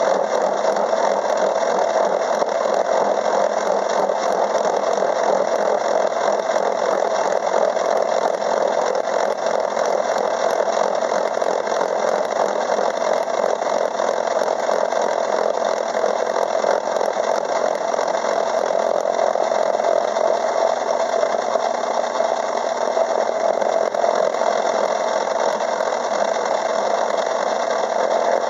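Craftsman 6-inch metal lathe running steadily while a gear cutter takes a pass through a steel blank, cutting one tooth space of a 64-tooth change gear.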